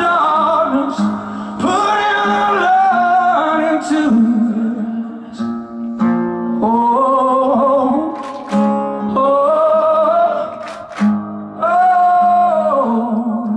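Live male lead vocal sung in long, drawn-out phrases over a strummed acoustic guitar.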